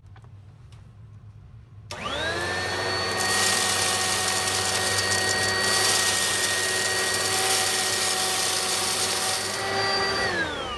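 Oreck upright vacuum cleaner switched on about two seconds in. Its motor spins up quickly to a steady whine and runs on carpet with a freshly fitted brush-roll belt, then is switched off near the end and winds down in falling pitch.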